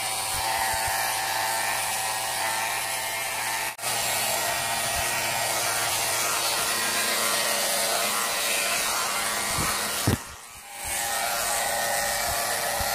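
Electric hair clippers buzzing steadily as they shave hair at the back of the head, dropping out briefly twice.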